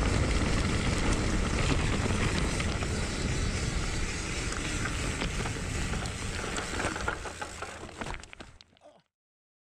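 Wind rushing over the microphone of a moving rider's camera, with scattered clicks and rattles. It fades from about seven seconds in and cuts off about nine seconds in.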